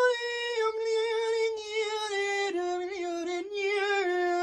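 A single high voice singing unaccompanied, holding long drawn-out notes that step slowly downward in pitch.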